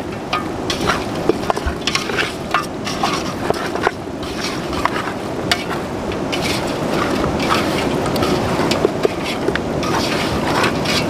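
Bare hands kneading raw chicken pieces in tikka masala and lemon juice in an aluminium pot: wet squelching and slapping, with many small clicks and knocks of the pieces against the metal.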